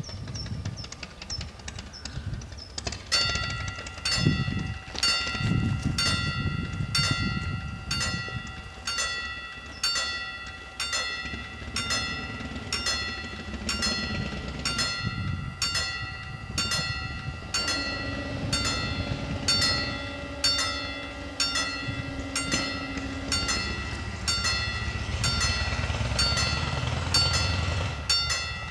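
German level-crossing warning bell starting about three seconds in, struck in an even rhythm of about one stroke a second. Past the middle a steady low hum joins for several seconds as the half barriers lower.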